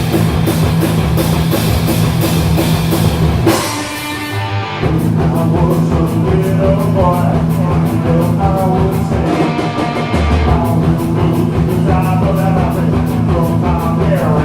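Rock band playing loud and live: heavy distorted low notes held over fast drumming with constant cymbal hits. About four seconds in the band drops back for about a second, then crashes back in at full volume.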